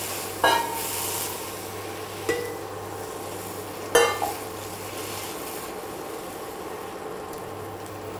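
Semolina and vegetable upma being stirred with a silicone spatula in a nonstick pan just after hot water went in, the wet mixture sizzling. Three sharp clinks of the spatula against the pan ring briefly, about half a second, two seconds and four seconds in.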